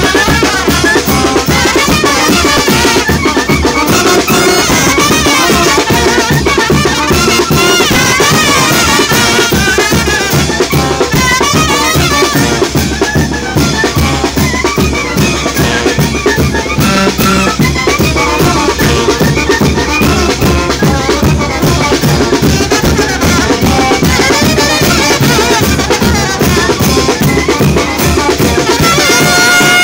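Mexican brass band playing live while marching: a brass melody over bass drum, snare and crash cymbals keeping a steady beat.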